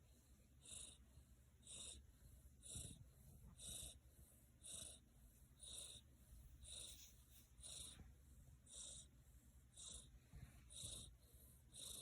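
Cat snoring in its sleep: faint, wheezy hissing breaths, about one a second.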